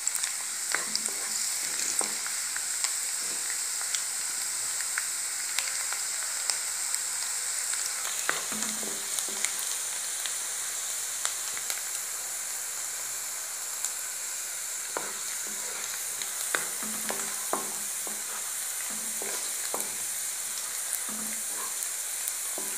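Chopped garlic sizzling in hot oil in a kadai: a steady high hiss, with scattered taps and scrapes from a wooden spatula stirring against the pan.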